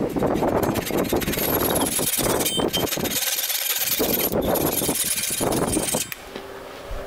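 Handsaw cutting back and forth through the protruding end of an ash axe handle and its wooden wedge, in steady strokes that stop about six seconds in.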